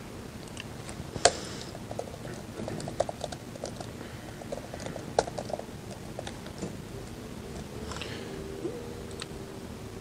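Typing on a computer keyboard: irregular key clicks, with two sharper, louder keystrokes about a second in and about five seconds in.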